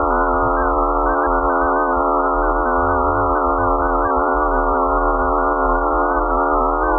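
Eerie space-data sonification: a dense drone of many steady held tones layered over a low rumble, unchanging throughout.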